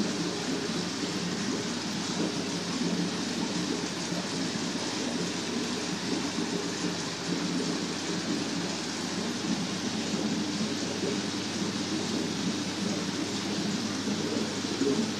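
Steady rushing, splashing water noise from the tanks' filtration and aeration.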